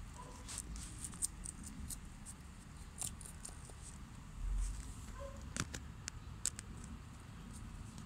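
Two rabbits munching fresh lettuce and greens from a dish: irregular crisp crunching and nibbling clicks, with a brief low rumble about halfway through.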